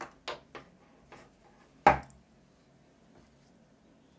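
Small parts and a soldering iron being handled on a wooden workbench: a few light clicks and taps, then one sharper knock about two seconds in.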